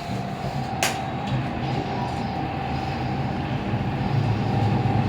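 Lift car travelling down its shaft: a steady whine from the lift drive over a low rumble that grows louder about four seconds in, with a single sharp click about a second in.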